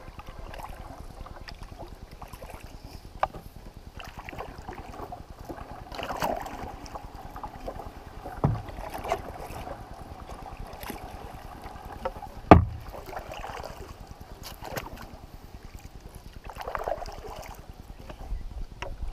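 Paddling a solo canoe: paddle strokes swishing through the water, several times, with a few sharp knocks, the loudest about halfway through.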